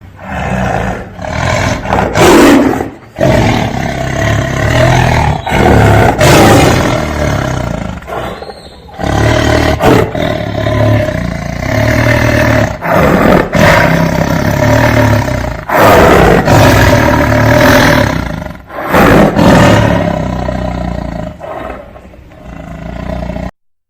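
Bengal tiger roaring and growling, a string of loud roars with short breaks between them, cutting off suddenly near the end.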